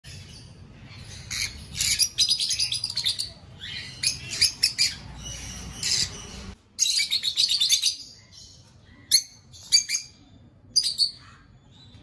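A cageful of peach-faced lovebirds chattering: bouts of rapid, high-pitched chirps, then after about eight seconds a few single sharp calls spaced apart.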